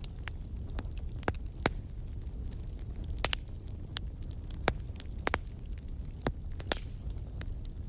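Wood fire crackling in a fireplace: irregular sharp pops and snaps, a few louder ones, over a steady low rumble of the flames.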